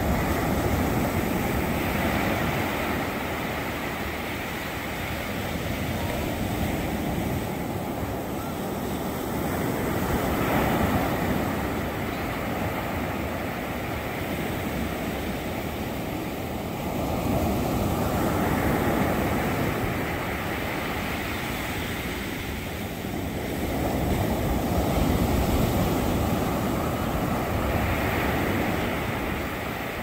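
Ocean surf: small waves breaking and washing up over the sand, the rush swelling and easing every several seconds.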